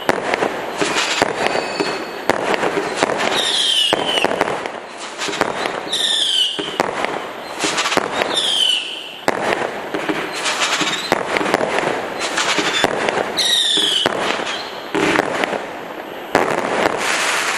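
Kimbolton Fireworks 'Screeching Devils' 110-shot barrage cake firing rapidly, a dense run of bangs and crackles. Four short whistles that fall in pitch cut through, from the shots with whistle tails.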